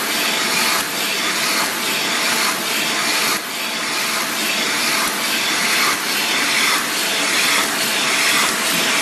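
TZ 230A automatic envelope tongue tape gluing machine running: a steady airy hiss with a faint steady tone, and a faint regular beat a little under once a second.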